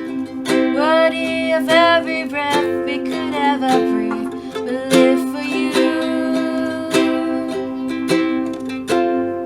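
Worship music on a strummed acoustic guitar holding steady chords, with a gliding melody line over it about one to three seconds in.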